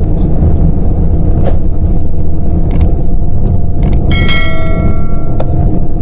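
Steady low rumble of a moving road vehicle. About four seconds in come a couple of clicks and a short metallic ringing that fades within a second.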